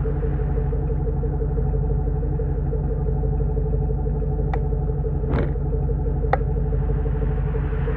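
1997 Jeep Grand Cherokee's 5.2-litre V8 idling steadily through a Magnaflow Turbo XL muffler and Magnaflow catalytic converter. Three brief sharp clicks come about halfway through.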